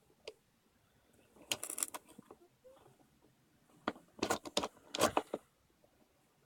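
Loose plastic pieces of a disassembled Dayan Zhanchi 3x3 speedcube clicking and rattling as they are handled, in three short clusters of clicks.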